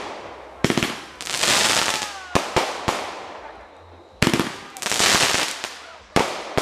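Aerial fireworks bursting: sharp bangs about every two seconds, one of them a quick double, each followed by a crackling hiss of falling sparks that fades away.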